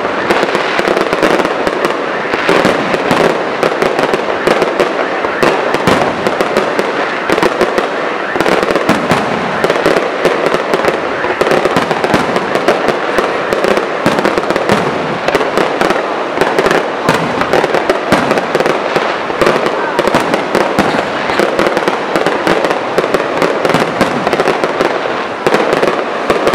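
A fireworks display firing continuously: a dense, unbroken stream of bangs from aerial shells and ground-level effects, with crackling between them.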